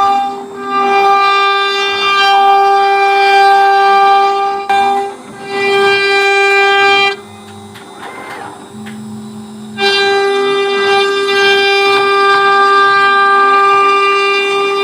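CNC router spindle running with a steady high-pitched whine while a V-bit engraves wood. About seven seconds in it drops much quieter for a couple of seconds, then returns at full level.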